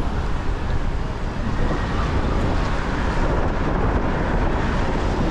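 Steady rumble of a car driving along a wet city street, with wind buffeting the microphone.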